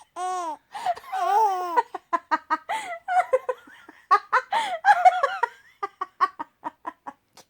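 Baby laughing: two longer, drawn-out laughs in the first two seconds, then a string of short, quick laugh bursts.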